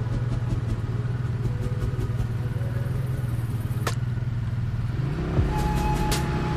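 Small motorbike engine idling steadily with a low hum. There is one sharp click about four seconds in, and near the end the sound grows louder and busier.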